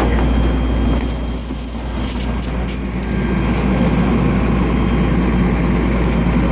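A heavy engine running steadily with a low drone. It dips in loudness for a couple of seconds, with a few short clicks about two seconds in.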